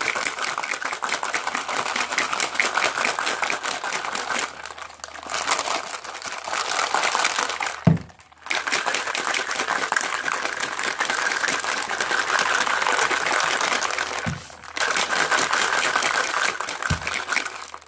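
A shaker cup holding water, ice cubes and drink powder being shaken hard: ice rattling against the cup in a dense, continuous clatter, with three short pauses and a low thud about eight seconds in.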